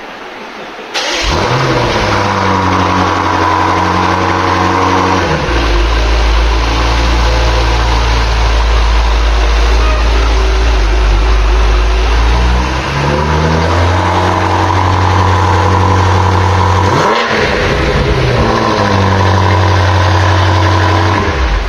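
BMW M5 Competition's twin-turbo V8 starting about a second in with a sharp flare, then running at idle with its pitch dropping, rising again and dipping briefly before the engine note falls away near the end.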